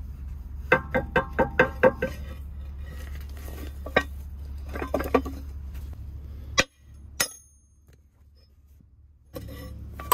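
Hammer striking a steel pin in an excavator linkage part, metal on metal with a ringing clang. It opens with a quick run of about six blows, then a few single blows follow and a light high clink comes near the middle.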